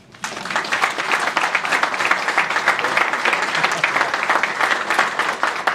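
Audience applauding, a dense patter of many hands clapping that starts a moment in and holds steady.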